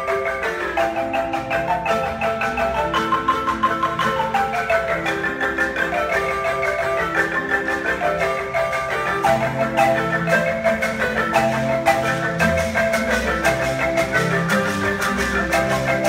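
Ensemble of Zimbabwean-style wooden marimbas with tube resonators playing a quick, interlocking rhythmic piece, many struck notes overlapping. Low bass marimba notes come in more strongly about halfway through.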